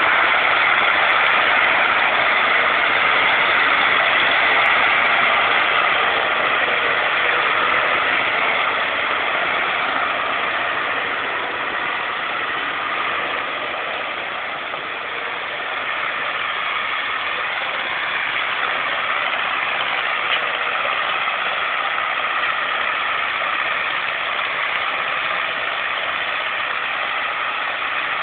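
Heavy diesel engine running steadily, easing off a little about halfway through.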